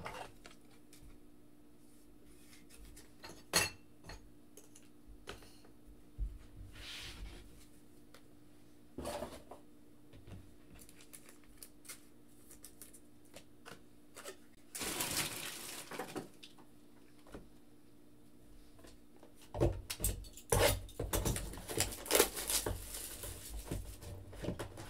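Trading cards in hard plastic holders being handled and set on a desk: scattered light clicks and taps over a faint steady hum, with a short rustle partway through. Near the end the handling gets busier as a cardboard blaster box of cards is picked up.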